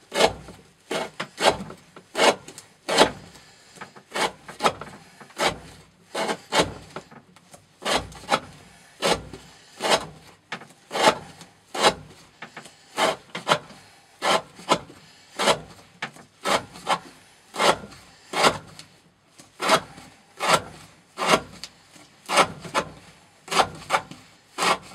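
N690 steel knife blade slicing through rope again and again in a rope-cutting edge-retention test, each cut a short rasping stroke, about three every two seconds.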